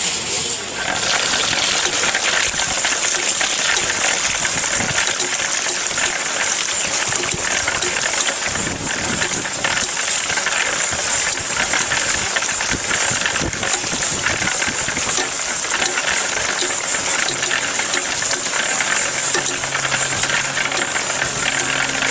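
1910 Hercules chain-and-washer water pump turned by a horse gear: the chain and washers rattle and clatter steadily as they run up the pipe lifting water.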